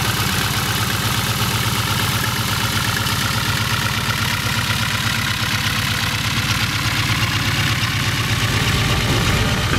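Radial engine of a Boeing Stearman biplane running steadily as the plane taxis on grass, a dense, rapid firing rumble that grows a little louder near the end as it passes close.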